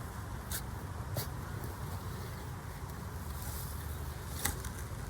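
Potatoes being handled out of loose soil: a few faint scrapes and knocks, three in all, the last the clearest, over a steady low rumble.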